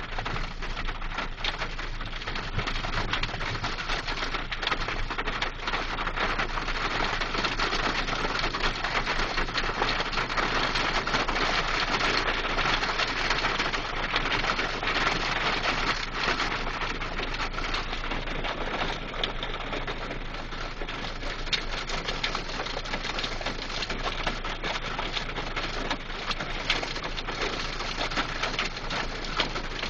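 Hail and heavy rain pelting a parked car: a dense, steady patter of small hits, heaviest in the middle.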